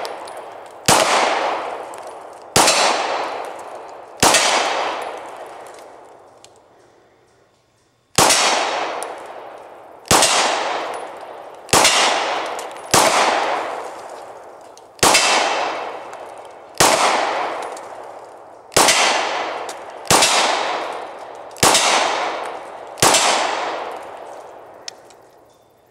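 Glock 22 pistol firing 9mm rounds through a Lone Wolf 40-to-9mm conversion barrel: thirteen single shots, each trailing off over a second or more. The first three come about 1.7 s apart, then a pause of about four seconds, then ten more at a steady pace of roughly one every 1.5 to 2 seconds.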